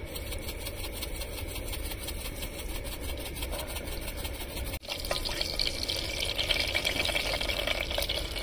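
Cumin seeds sizzling and crackling in hot oil in a pan: the first step of a tadka. The sizzle breaks off for a moment about halfway, then comes back louder.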